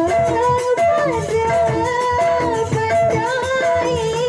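A woman singing a long, wavering, ornamented melody through a microphone, over a traditional Sasak rudat ensemble with drum and rattle percussion.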